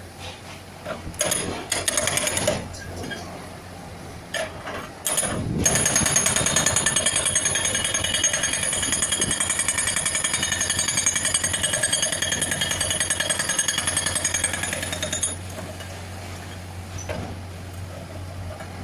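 Hydraulic rock breaker on a Bull HD76 backhoe loader hammering rock in rapid blows: a short burst about a second in, then a long steady run of hammering from about five seconds in that stops about fifteen seconds in. The loader's diesel engine keeps running underneath.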